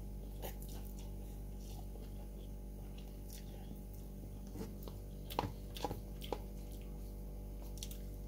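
A person eating cup instant fried noodles with chopsticks: slurping and chewing, with a few short clicks and wet smacks about five to six and a half seconds in.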